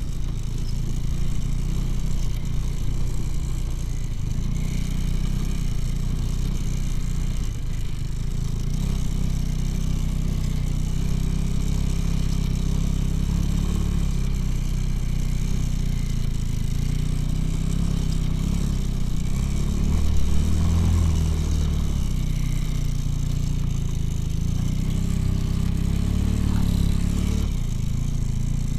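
All-wheel-drive motorcycle's engine running steadily under load while the bike rides through deep snow, with one brief louder surge about twenty seconds in.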